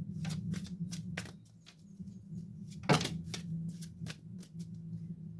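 Tarot cards being handled and laid down on a table: a run of light taps and slaps, with one louder slap about three seconds in, over a steady low hum.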